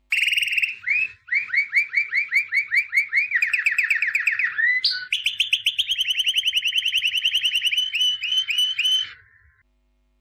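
A small songbird singing a long, loud song of rapidly repeated downward-sweeping whistled notes. The notes come in runs at different speeds, some slow and some fast, with short breaks about a second in and near the middle. The song stops shortly before the end.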